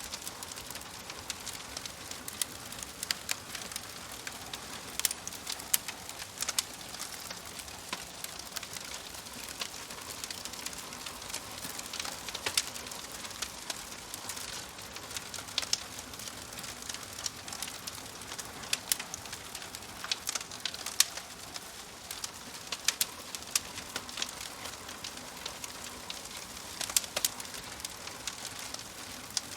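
Wood fire crackling in a wood-burning stove: a steady soft hiss with frequent sharp pops and snaps at irregular intervals.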